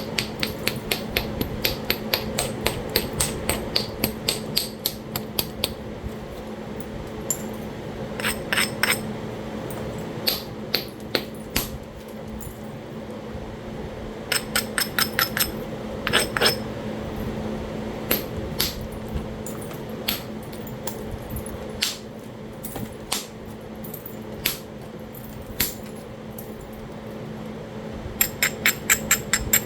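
Talahata quartzite being struck during flintknapping: runs of quick, sharp taps, several a second, and single strikes between, as the stone's edge is worked in bifacing. A steady hum lies underneath.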